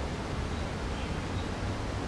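Steady outdoor background rumble and hiss, heaviest in the low end, with a couple of faint high chirps about a second in.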